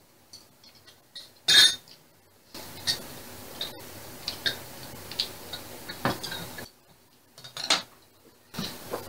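Metal spoons and chopsticks clinking against ceramic bowls and a metal pot during a meal: irregular sharp clinks, the loudest about a second and a half in and another near the end.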